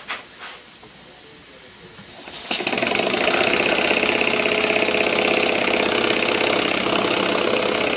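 A small oscillating (wobbler) model engine starts about two seconds in, then runs fast and steady with a loud hiss from its exhaust. It is driving a small dynamo through a spring belt.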